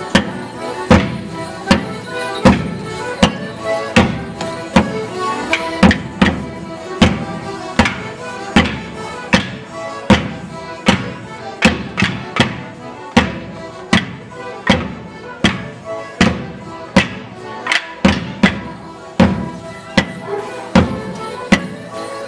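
Border Morris dance music: a tune of held, reedy notes over a loud, steady beat of sharp strikes, about four every three seconds.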